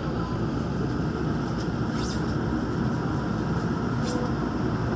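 Steady running noise inside a Daegu Metro Line 3 rubber-tyred monorail car as it pulls out of a station, a low rumble and hum. Two brief high hisses about two and four seconds in.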